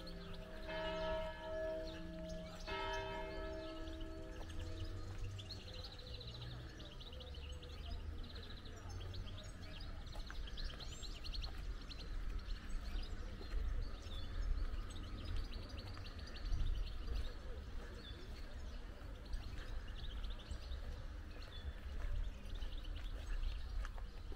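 A church bell tolling, struck about every two seconds, its last strokes ringing out and dying away about five seconds in. After that, small birds chirp over a steady low rumble.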